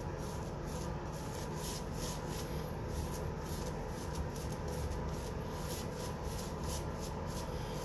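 Double-edge safety razor (Rockwell R41 with a Treet blade) scraping through stubble and lather in short strokes, about one or two a second, on the final pass.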